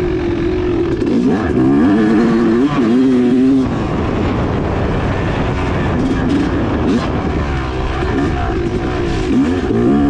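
2016 Yamaha YZ250X single-cylinder two-stroke dirt bike engine under riding load, its pitch repeatedly rising and falling as the throttle is opened and closed over rough trail.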